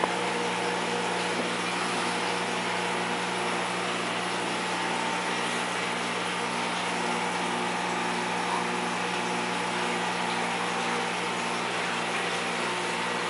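Steady electric hum of an aquarium's wet/dry sump filter and its high-flow return pump, with an even hiss of running water.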